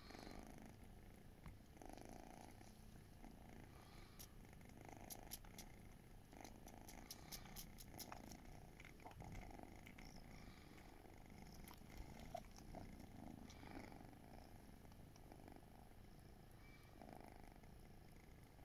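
Faint, steady purring from British Shorthair cats while the mother nurses her suckling kittens, with a run of small clicks about four to eight seconds in.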